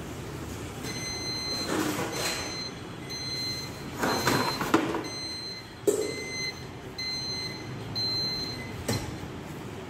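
Aluminium baking tray scraping and clattering against the metal door and rails of a commercial deck oven as it is slid in and out, with several sharp knocks. A short high beep repeats about once a second behind it.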